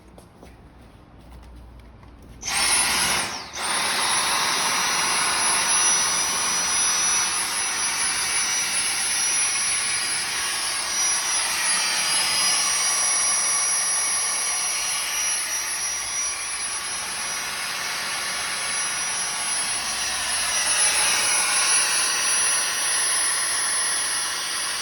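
Dyson vacuum cleaner switched on about two and a half seconds in. Its motor comes up suddenly to a steady high-pitched whine over a rush of air, drops out for a moment about a second later, then runs steadily.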